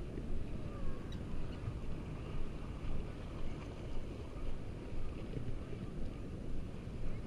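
Wind buffeting the microphone: a noisy low rumble that rises and falls in frequent pulses.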